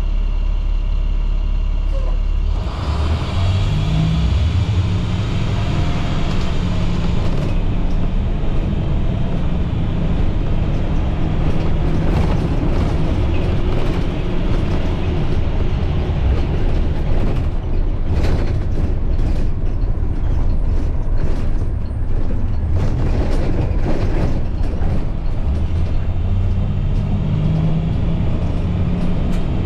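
Cab sound of a 2010 IC CE300 school bus's MaxxForce DT inline-six diesel engine running under way, its note growing stronger about two and a half seconds in and again near the end. The body rattles and creaks with scattered knocks in the middle, typical of a bus body going over bumps. The bus has a transmission that struggles to upshift unless the driver lifts off the gas.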